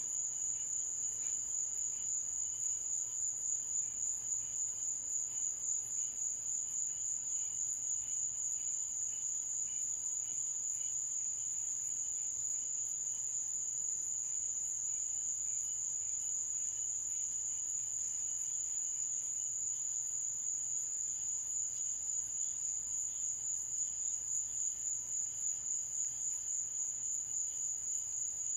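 A night chorus of insects: a continuous high-pitched trill that holds steady, with no thunder.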